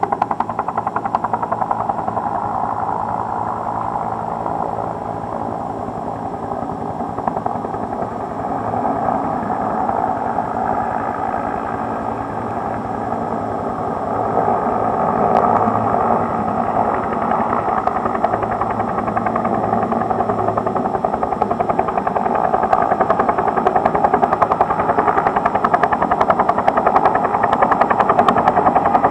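Helicopter heard from inside the cabin: engine and rotor running with a steady rapid rotor beat, growing louder about halfway through.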